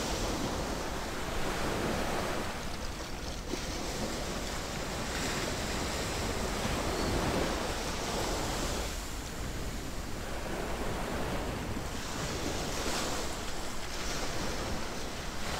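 Ocean waves washing in on the shore, a steady rush of surf that swells and ebbs every few seconds.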